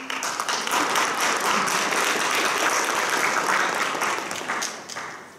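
Audience applauding in a large hall, many hands clapping together and dying away near the end.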